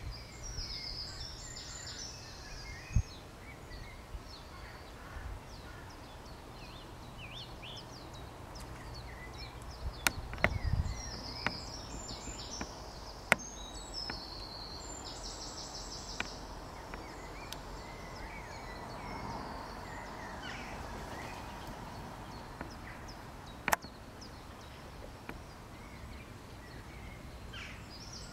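Small birds calling: scattered high chirps and short fast trills, over a low steady hum and outdoor background. A few sharp clicks sound now and then.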